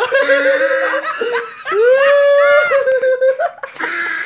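Loud, high-pitched laughter, with a long drawn-out cry about two seconds in.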